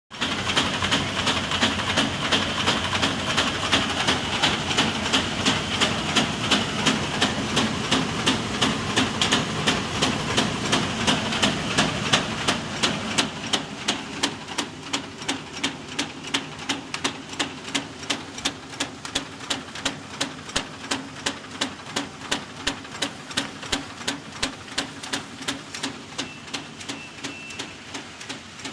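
Flat/satchel paper bag making machine running: a sharp mechanical clack repeating evenly about two to three times a second over a steady machine hum, somewhat louder for the first dozen seconds.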